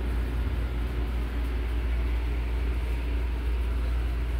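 A steady low machine drone with a constant hiss over it.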